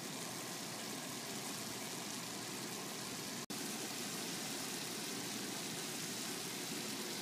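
Faint steady sizzle of oil in a pot of potato bhujiya still on the heat, breaking off for an instant about three and a half seconds in.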